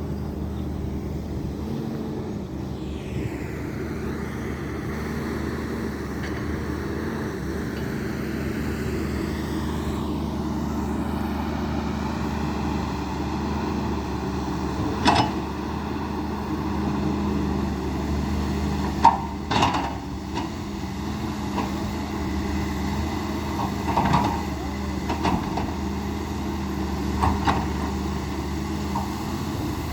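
Hydraulic excavator's diesel engine running steadily while it works, with a pitch sweep early on and several sharp metallic knocks in the second half.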